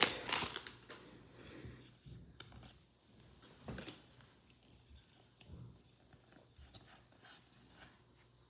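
A short crinkle at the start, then faint, scattered rustles and soft clicks of trading cards being handled and flipped through one by one.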